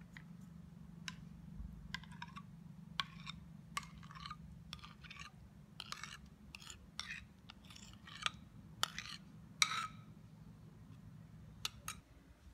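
Thick yoghurt scraped out of a bowl with a metal spoon into a plastic blender beaker: a string of spoon clicks and short wet scrapes and plops.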